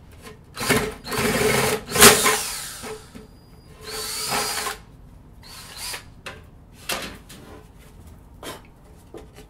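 DeWalt cordless drill with a large bit boring a hole through a wooden board, in several runs over the first five seconds, its motor whine rising as it speeds up in the last run. A few short knocks follow.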